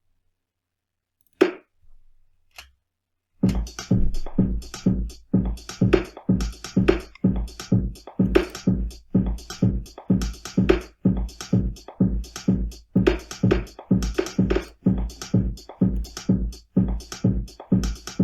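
Programmed electronic drum-kit loop from Ableton Live's drum rack: a couple of single drum hits sound, then about three seconds in a steady repeating beat with a deep kick and bright higher hits starts and keeps looping.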